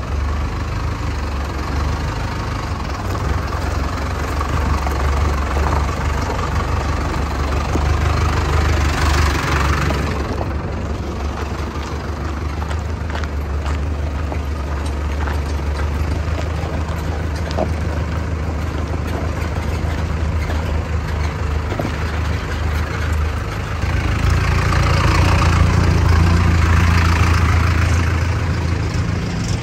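Tractor diesel engine running steadily, growing louder for a few seconds about 24 seconds in.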